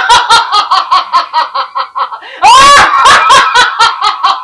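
A loud, high-pitched villain's cackling laugh in quick 'ha-ha' pulses, about four or five a second, from the demon (Rakkasi) character on the stage TV. About halfway through it breaks into a shrill shriek that rises and falls.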